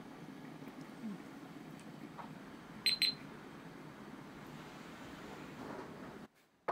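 Two quick high beeps from a SATO TM-12 digital kitchen timer as its buttons are pressed, starting a 13-minute countdown, over a steady low hiss.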